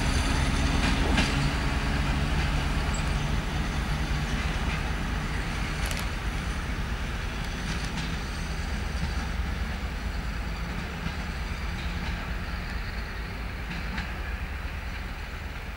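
A TEP70 diesel locomotive hauling a suburban passenger train away. The diesel engine's steady drone and the rumble of the train fade slowly as it recedes, with a few sharp clicks from the wheels and rails along the way.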